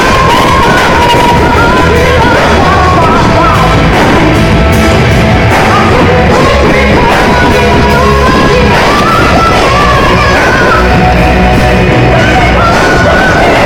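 Rock band playing live and very loud, with a high, held and wavering sung or yelled vocal line over drums and guitars.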